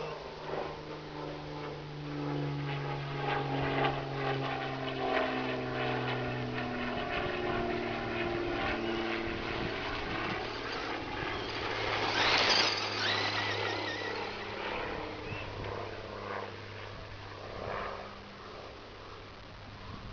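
Radio-controlled Traxxas Rustler truck driving off-road, its brushless Velineon motor whining with a pitch that glides and shifts with the throttle, along with clatter from the truck on rough ground. A loud rush of noise about twelve seconds in.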